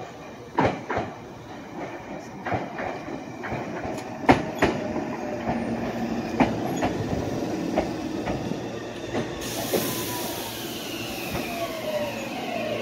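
Meitetsu local electric train pulling into the platform and slowing to a stop. The wheels clack repeatedly over rail joints at first, then the motor whine falls in pitch as it brakes, and a steady hiss starts about three-quarters of the way through.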